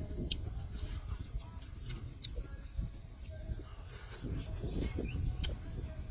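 Steady high chirring of insects, over a low rumble with scattered small clicks.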